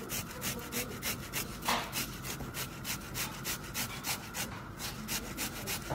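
Tomato half grated on a metal hand grater: rapid rasping strokes at about three a second as the flesh is rubbed back and forth across the holes.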